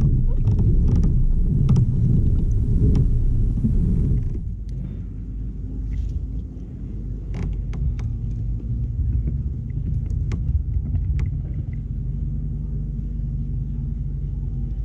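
Low, steady rumble of handling noise on a kayak-mounted camera, with scattered light clicks from the spinning rod and reel being worked. The rumble drops in level about four seconds in and runs on quieter.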